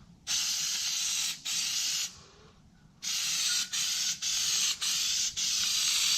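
Aerosol spray adhesive can hissing as glue is sprayed for the carpet. There are two bursts in the first two seconds, a pause of about a second, then a long run of spraying with brief breaks about every half second.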